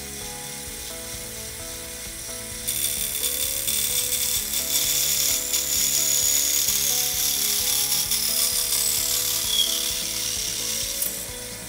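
Hole saw in a milling machine plunge-cutting into a round aluminum tube, lubricated with brushed-on cutting fluid: a high, hissing cutting noise with a thin squeal, much louder from about three seconds in and easing off near the end.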